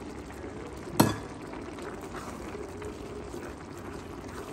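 Spaghetti in a creamy shrimp sauce simmering in a skillet while tongs turn it, a steady wet bubbling and stirring sound. A single sharp knock comes about a second in.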